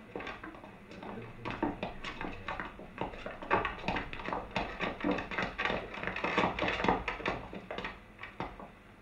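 Classroom hubbub of schoolboys: overlapping chatter and shouts with knocks and clatter of wooden desks and feet. It dies away near the end as the boys settle in their seats.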